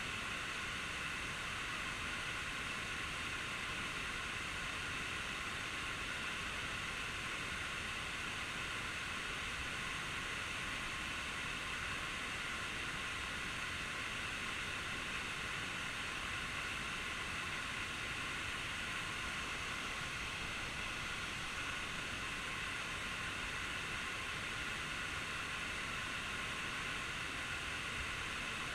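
Steady, even rush of a waterfall's falling water, with no breaks or changes.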